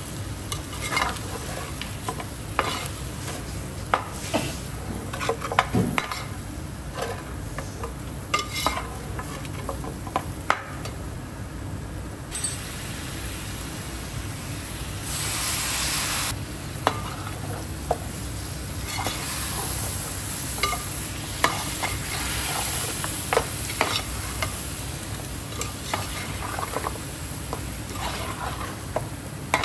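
A spoon stirring and scraping a pot of mutton korma frying in oil, with frequent short scrapes and knocks over a continuous sizzle. The sizzle grows louder about twelve seconds in, with a stronger hiss lasting about a second a little past the middle.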